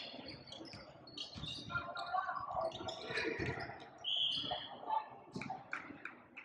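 Basketball game sounds: sneakers squeaking on the court in short, high chirps, with the ball bouncing and voices in the background.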